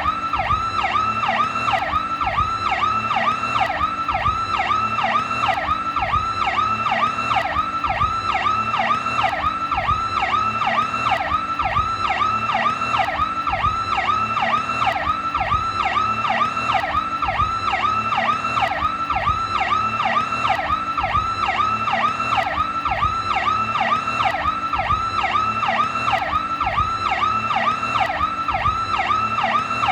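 New York police car PowerCall electronic siren sounding continuously: a fast yelp-like tone sweeping up and down about three times a second, steady and unbroken.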